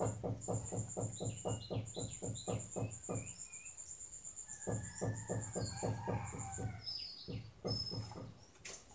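Birds calling and chirping over an even run of low pulses, about four a second, and a thin, fast-pulsing high tone; the sounds fade near the end.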